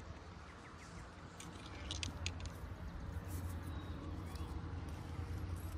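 Quiet open-air ambience: a low, uneven rumble of wind on the microphone, with a few faint ticks about two seconds in.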